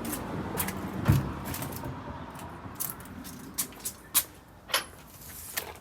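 A few scattered sharp clicks and knocks, one with a low thud about a second in, over a steady low background rumble.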